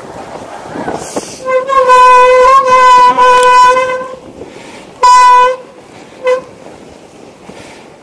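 Electric mountain bike's brakes squealing loudly with a steady, horn-like tone as they are applied: one long squeal of about two and a half seconds, then a half-second squeal and a brief chirp. The squeal comes from brakes wet from riding through deep snow.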